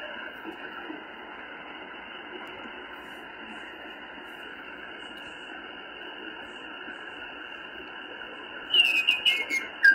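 Malahit DSP2 shortwave receiver's speaker giving a steady, muffled hiss of band noise while tuned across a quiet stretch of the 40 m band in SSB. Near the end a louder, crackly signal breaks in as the tuning moves.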